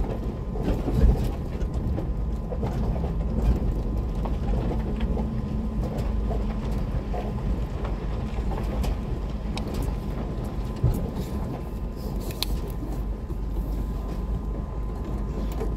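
Vehicle driving slowly over a rough dirt road: a steady low rumble of engine and road, with scattered clicks and knocks and a sharper knock about a second in, and a faint steady high hum throughout.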